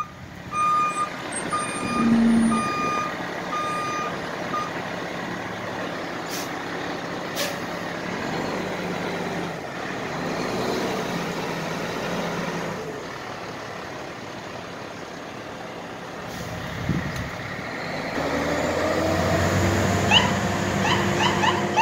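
Aerial ladder fire truck maneuvering: its backup alarm beeps steadily for the first few seconds, then short air-brake hisses, and the diesel engine runs throughout and revs up near the end as the truck pulls away.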